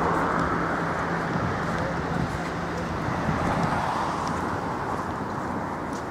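Road traffic noise: a steady rushing of passing vehicles, with a low engine hum that stops a little past halfway and the overall sound slowly easing off.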